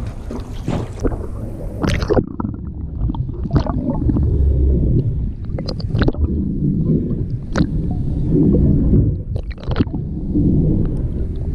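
Wind and water noise at the surface, then from about two seconds in the muffled, low, irregular rumble and gurgle of water heard through a submerged camera housing, with scattered sharp clicks.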